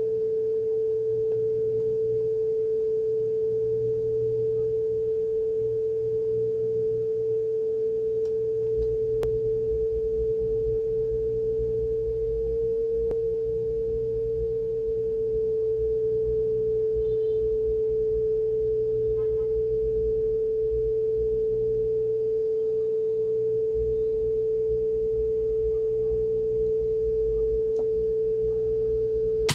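Aiwa HS-PS100 cassette player playing back a steady pure tone of about 440 Hz during speed calibration. The pitch rises slightly about halfway through as the motor speed trimmer is turned, then settles back near 441 Hz. The tone cuts off at the end.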